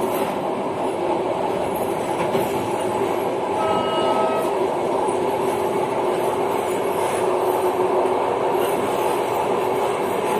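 Passenger train running, heard from the rear of the last car: steady rolling noise of wheels on rail. A short, high, even tone sounds briefly about four seconds in.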